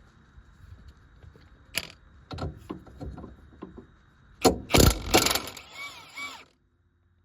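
Scattered knocks and clanks of tools against metal suspension parts, with a loud cluster of strikes just past the middle and a rattling scrape after it. The sound then cuts off suddenly.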